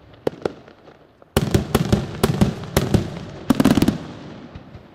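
Aerial firework shells bursting. Two light cracks near the start, then from about a second and a half in a quick run of sharp bangs, each trailing off in an echo, with a dense cluster just before four seconds. The bangs die away near the end.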